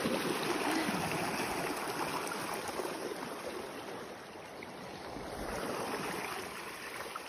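Rushing water of a swollen, muddy river in flood: a steady rush that eases slightly a little past the middle.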